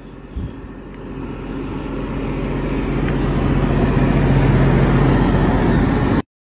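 Coach bus engine idling: a steady low hum that grows steadily louder as the microphone nears it, with a brief thump shortly after the start, cutting off suddenly near the end.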